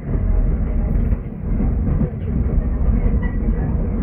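Brisbane tram 554, a heritage electric tram, running along its track, heard from inside the car. Its wheels and running gear make a steady low rumble with light rattling, which steps up sharply in level at the outset.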